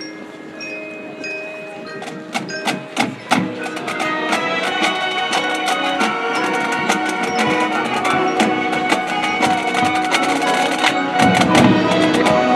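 High school marching band playing its show. It opens with sparse, ringing mallet-percussion notes, then a few sharp percussion clicks about two seconds in. From there the band builds into loud held chords, with low notes swelling in near the end.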